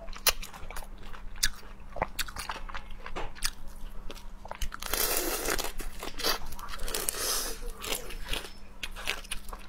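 Biting and crunching into the shell of a cooked hermit crab, sharp cracks scattered throughout with chewing. There is a denser run of crackling crunches about five seconds in and again around seven seconds.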